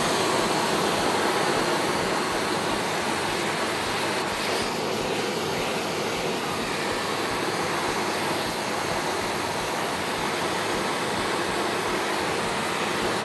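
Handheld gas torch burning with a steady rushing hiss, its flame played into a frying pan to heat the pan. The hiss starts and stops abruptly.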